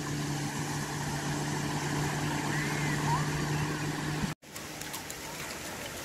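A steady engine hum, one low note with an overtone, over the wash of surf. About four seconds in it cuts off abruptly, leaving only small waves breaking and washing up the sand.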